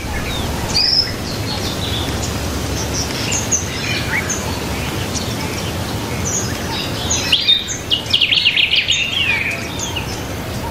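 Birds chirping and calling, with short rising and falling whistles and a quick trill about eight seconds in, over a steady low outdoor rumble.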